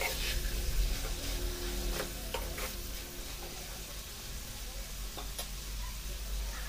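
Chickpeas with chopped onion and tomato sizzling in a hot pan while a spatula stirs them, with a few light clicks and scrapes of the spatula against the pan.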